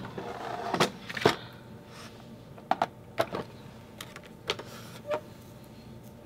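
A sliding paper trimmer being set down and a photo lined up under its cutting rail: scattered light knocks and clicks, the loudest about a second in.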